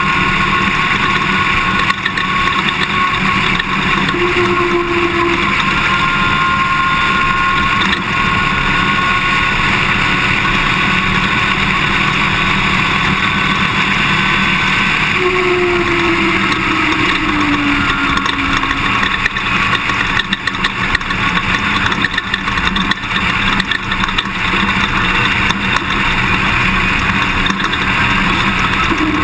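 Toyota Tundra pickup driving over dirt: steady engine, tyre and wind noise with frequent small knocks from rough ground, and the engine pitch falling briefly about halfway through.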